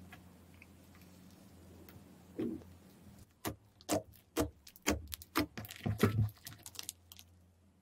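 Fingertips pressing into thick slime, squeezing out a run of sharp clicking pops, roughly three a second, starting about three seconds in; before that only a faint low hum.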